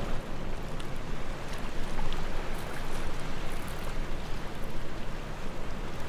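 Wind blowing on the microphone over choppy sea washing and breaking against coastal rocks: a steady rushing noise.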